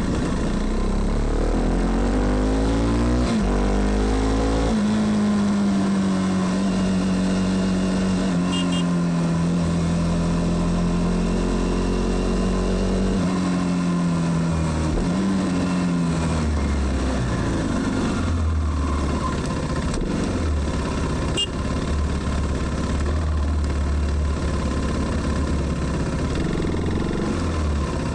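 KTM Duke 390's single-cylinder engine, with a flashed ECU, pulling up through two gear changes in the first five seconds, then holding a steady, slowly falling note. About thirteen seconds in it winds down and runs low and steady near idle for the rest.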